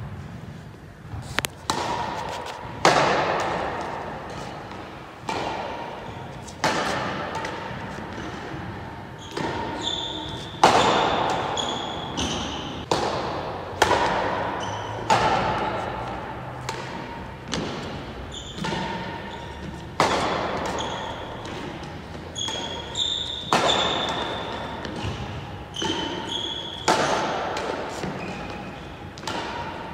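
Badminton rally: racket strings hitting a shuttlecock every second or two, each sharp crack ringing on in a large hall's echo, with short high squeaks between some hits.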